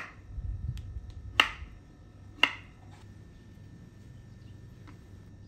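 Knife cutting papaya on a wooden cutting board: three sharp knocks of the blade meeting the board, roughly a second apart, with a couple of fainter taps between.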